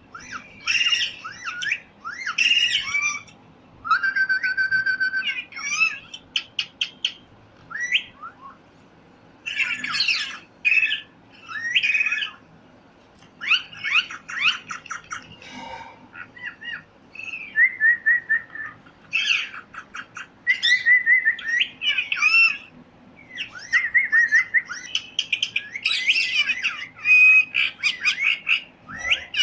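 Pet parrot calling in a busy series of high chirps and harsh squawks, with short pauses between bouts. About four seconds in it holds a steady whistled note, followed by a quick run of short clicking chirps.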